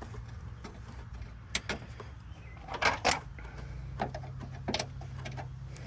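Metal clinks and rattles from the window motor and regulator parts being worked by hand inside a Mustang door panel, a few sharp clanks scattered through, over a steady low hum.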